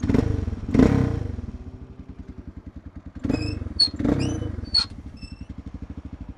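Suzuki DR650 single-cylinder engine idling with an even, rapid beat, with two louder surges in the first second. Between about three and five seconds in come several short, sharp hits with a ringing tone.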